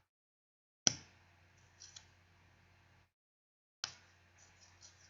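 Rimmel Scandaleyes Retro Glam mascara wand being pumped in and out of its tube, making a few short sharp clicks with quiet gaps between.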